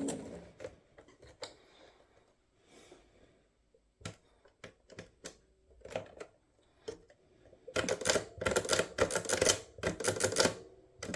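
Scattered sharp clicks, then a dense run of quick clicking and clattering over the last few seconds: small hard parts being handled or worked.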